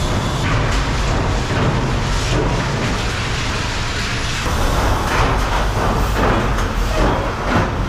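Car-body press-shop machinery running: a steady low rumble with metallic clanks and clatter, busier in the second half.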